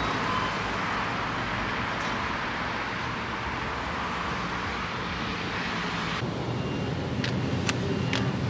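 Street traffic noise from road vehicles, a steady even roar. About six seconds in it cuts off suddenly, giving way to the sound of a shop interior with short repeated high beeps and a few sharp clicks of plastic packaging being handled.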